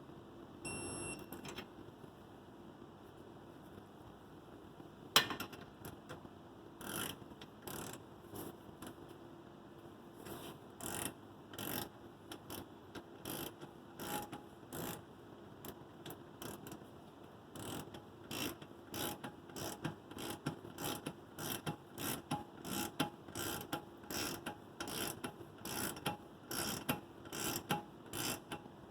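Torque wrench ratcheting in short strokes while tightening the steering stabilizer mounting hardware toward 50 ft-lbs: sparse clicks at first, then a steady run of about two clicks a second in the second half. One much louder sharp click about five seconds in, and a brief high beep about a second in.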